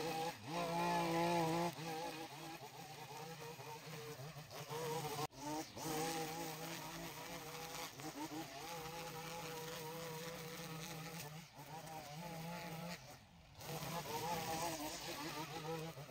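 Small petrol engine of yard power equipment running, its pitch wavering up and down, with brief breaks about five seconds in and again near thirteen seconds.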